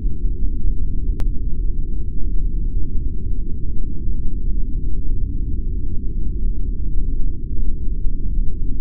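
A low, steady, muffled rumble with nothing in the higher range, and a single sharp click about a second in.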